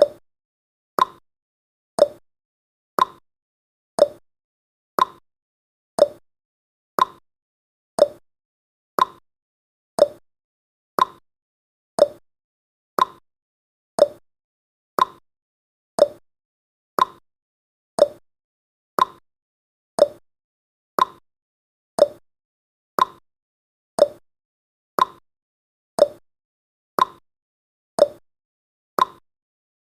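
A countdown timer's clock-tick sound effect: one short, sharp tick every second, steady and even, with silence between ticks.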